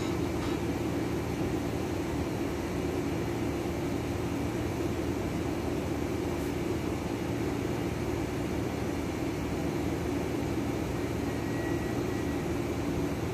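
A steady drone of background noise that holds even throughout, with no distinct events.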